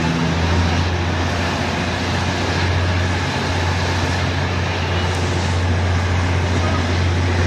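Steady running noise of State Railway of Thailand passenger trains passing close alongside one another, heard from an open carriage doorway: a constant deep drone under an even rush of wheel and wind noise.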